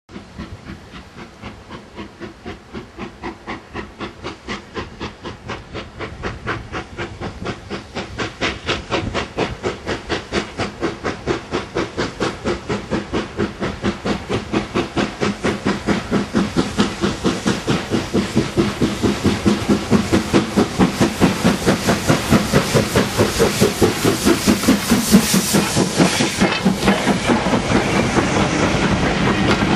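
An LMS Stanier Black Five 4-6-0 steam locomotive pulls away with a train. Its exhaust beats come steadily, growing faster and louder as it approaches and passes, with steam hissing. The coaches roll by near the end.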